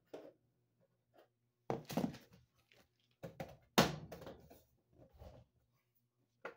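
A handful of knocks and clunks from pliers and hands handling the sheet-metal back panel of an electric range, the loudest about four seconds in.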